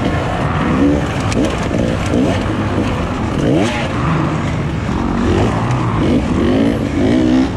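Dirt bike engine heard from on board, revving hard. Its pitch climbs and drops several times as the throttle is worked through the track's turns and obstacles.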